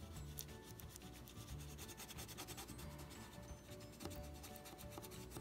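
A burnishing tool rubbed back and forth over mending tissue on a cardboard box, a faint quick scratchy rubbing that presses the tissue down and activates its glue. Quiet background music with steady low notes plays under it.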